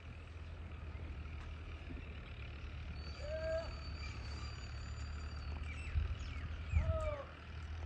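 Birds calling: two short, arching mid-pitched calls about three and a half seconds apart, with a long thin high whistle between them and faint scattered chirps, over a steady low rumble.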